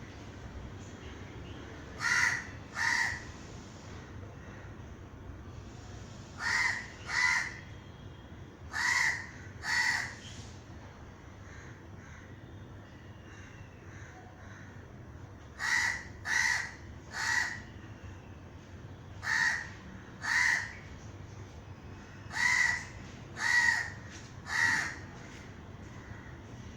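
A crow cawing in short harsh calls, given in runs of two or three caws with pauses of a few seconds between runs.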